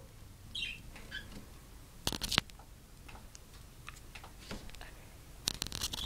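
Monk parakeet's beak tapping and nibbling on a camera: a short cluster of sharp clicks about two seconds in and another run of clicks near the end, with two faint soft chirps in the first second and a half.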